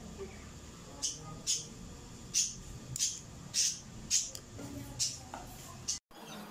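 Flint lighter being struck over and over: about eight short, scratchy rasps of the spark wheel, one every half second or so.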